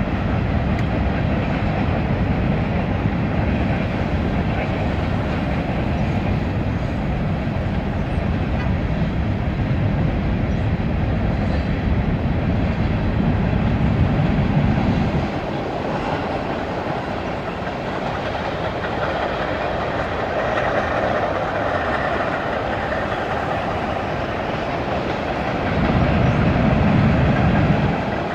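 Freight train cars of a Union Pacific mixed freight rolling steadily past, wheels rumbling and clacking over the rail joints. A heavier low rumble under it drops away about halfway through and swells again briefly near the end.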